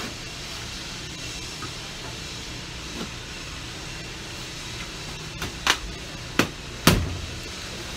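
A few sharp knocks and thumps from the boxed electric jack hammer and its packaging being handled, coming in the last few seconds with the last the loudest, over a steady low rumble.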